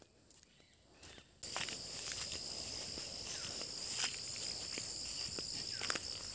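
Steady high-pitched chorus of field insects that cuts in abruptly about a second and a half in, with the scattered footsteps and rustling of someone walking through dry grass.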